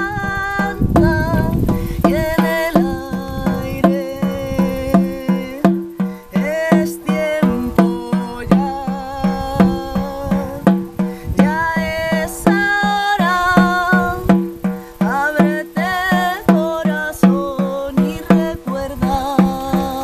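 Shamanic frame drum struck with a beater in a steady, even beat, each stroke a low ringing tone, while a woman sings the melody of an ícaro over it in long, gliding notes.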